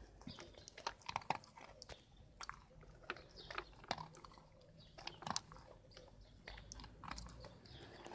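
A dog chewing and crunching food: short, irregular crunchy clicks, sometimes several in quick succession.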